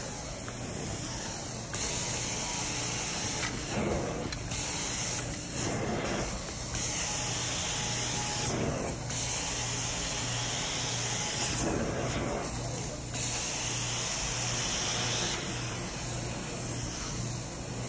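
Carpet-cleaning extraction wand spraying and sucking water from a rug: a steady hiss of suction over a low motor hum. The hiss grows louder and brighter in stretches as the wand is drawn across the pile.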